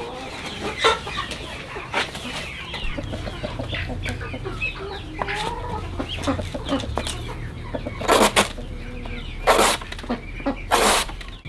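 Chickens clucking, with two sharp knocks early on and three louder swishing strokes of a machete cutting into a green banana trunk in the last few seconds.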